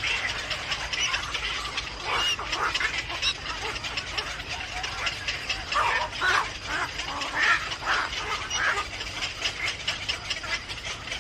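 Birds calling: many short calls, bunched around two seconds in and again from about six to nine seconds in, over a faint steady high tone.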